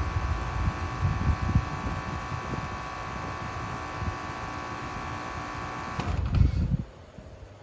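A 2023 Carrier Sentry 15 heat pump outdoor unit with a Copeland scroll compressor, running in heat mode with a steady multi-tone hum. About six seconds in, the unit shuts down: there is a brief low rumble and the hum cuts off sharply, leaving the fan spinning down much more quietly.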